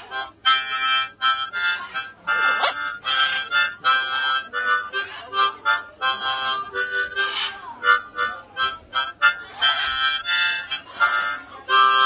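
Harmonica playing a quick tune in short, choppy notes and chords with brief gaps between them.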